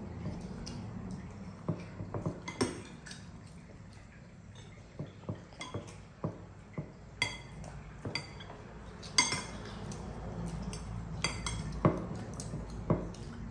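Metal spoons clinking and scraping against bowls as children scoop up rice, in scattered, irregular taps, some ringing briefly.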